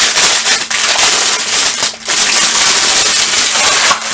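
Clear plastic wrapping crinkling loudly as it is pulled off a studio light bulb holder. It comes in two long spells with a short break about halfway.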